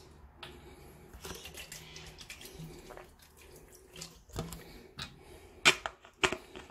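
Faint kitchen handling noises: rustling, light clatter and small clicks, with two sharp clicks near the end.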